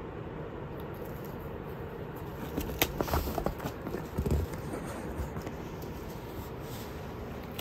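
A cat scuffling with a wand toy on foam floor mats: a short flurry of clicks, rustles and soft thumps about three seconds in, over a steady low background hiss.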